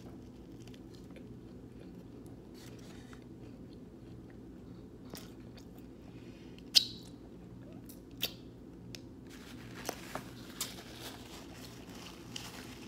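Close-up eating sounds: a person biting into and chewing a sandwich, with scattered small clicks, a sharp snap about seven seconds in and a denser crackle near the end, over a steady low hum.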